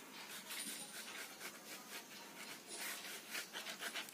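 Ballpoint pen scratching across a carpet in short, quick hatching strokes, faint and getting busier from about three seconds in.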